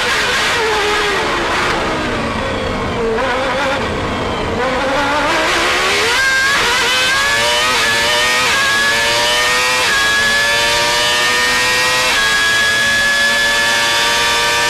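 McLaren Mercedes V10 Formula 1 engine heard onboard: the engine note falls as the car slows for a corner, then climbs again under full throttle, with several quick upshifts, each a brief drop in pitch before it rises again.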